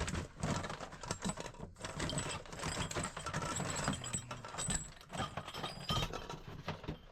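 Rummaging through a stock of gas pipe fittings: a continuous, irregular clatter and clinking of small metal parts being shifted and knocked together.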